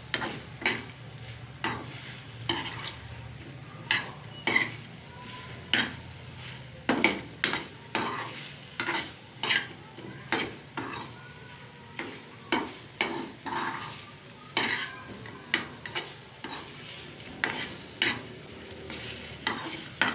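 Metal spoon scraping and clicking against an aluminium frying pan as chicken is stirred, in irregular strokes about one to two a second, over the steady sizzle of the masala frying dry on a high flame.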